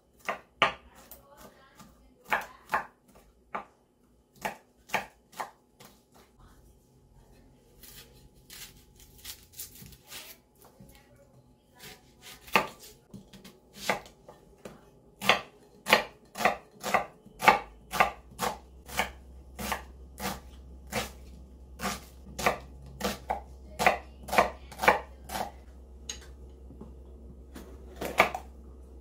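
Knife chopping on a cutting board: sharp, irregular knocks, sparse at first and coming faster, about two a second, in the second half.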